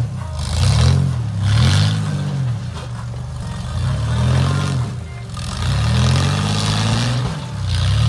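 Rock crawler buggy's engine revving in repeated throttle bursts, its pitch rising and falling about once a second as it climbs a steep rock ledge, with hissy bursts of tyres spinning and scrabbling on rock and dirt.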